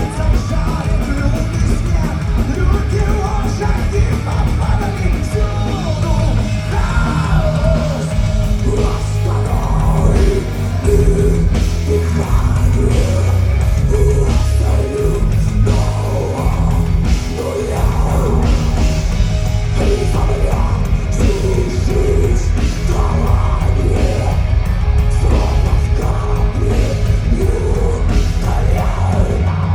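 A heavy metal band playing loud music live, with a lead vocalist singing over a dense, heavy low end.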